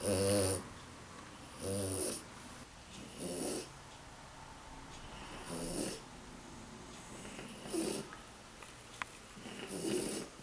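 French Bulldog snoring in its sleep: a rasping snore roughly every two seconds, six in all, the first the loudest. Noisy sleep breathing like this is typical of the breed's short, flat-faced airway.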